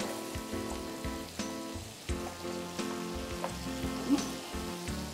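Finely chopped onion sizzling as it sautés in melted margarine in a frying pan, with scattered sharp crackles.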